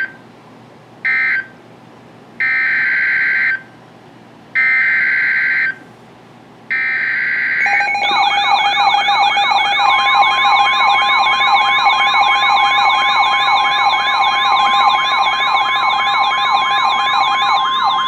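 NOAA Weather Radio digital data tones: two short buzzing bursts near the start, then three longer bursts about two seconds apart, the coded header of the next warning. Then, from about eight seconds in, the weather radio's alarm sounds as several rapidly warbling siren-like tones, and a steady single-pitch warning alarm tone joins them about two seconds later.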